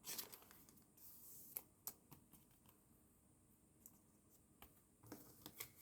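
Faint handling of trading cards, with a few soft clicks and brief rustles scattered through an otherwise near-silent room.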